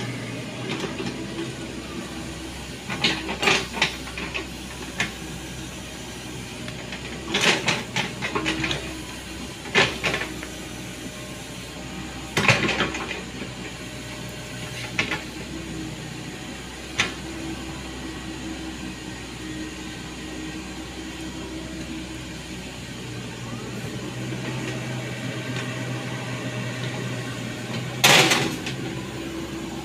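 Komatsu PC70 hydraulic excavator's diesel engine running steadily as it digs a trench. Several short, sharp bursts of noise come from the bucket and arm working the soil, the loudest near the end.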